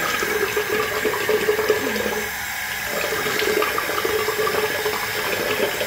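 A bathroom sink tap runs steadily into the basin, with splashing as water is scooped onto the face with cupped hands.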